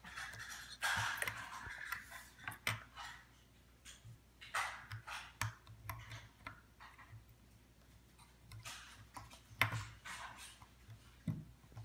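Small plastic Lego bricks clicking and tapping as they are handled, pressed together and set down on a wooden table, with a brief rustle about a second in.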